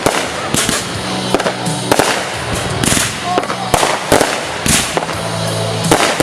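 Fireworks going off: a quick series of sharp bangs and crackles, roughly one or two a second.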